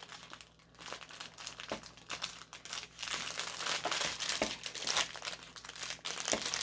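Crinkly plastic packaging of a diamond painting kit being handled: a run of quick crackles that grows denser and louder about three seconds in.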